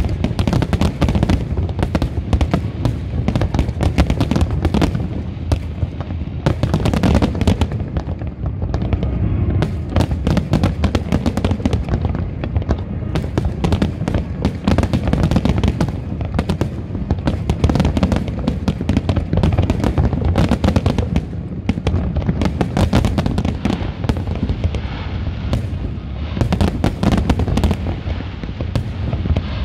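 Large fireworks display: a dense, continuous barrage of overlapping shell bursts and crackles with a deep rumble underneath, no gaps between the bangs.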